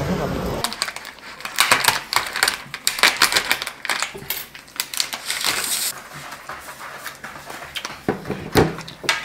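Thin plastic film crinkling and crackling as it is peeled and pulled off a plastic takeout food container, followed by sparser light clicks and taps of chopsticks and packaging, with one sharper click near the end.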